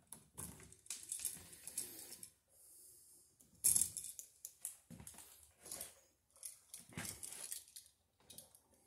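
Hand wire strippers biting into and pulling the plastic insulation off a copper electrical wire: several short scraping, snipping bursts, the sharpest a little under four seconds in.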